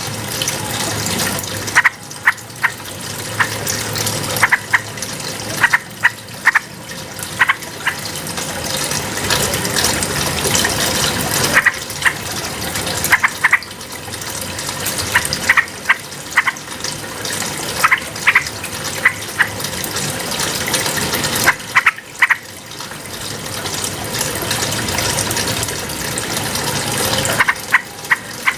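Yellow-vented bulbul giving short, sharp call notes in small clusters every one to three seconds over a steady rush of running water.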